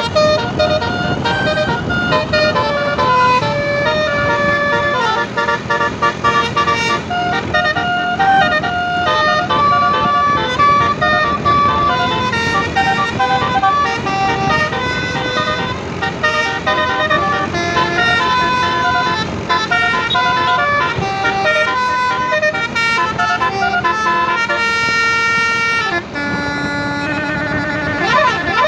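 Telolet Basuri musical bus horn playing a tune: a quick run of pitched notes stepping up and down one after another, with a held lower note near the end, over a steady low rumble.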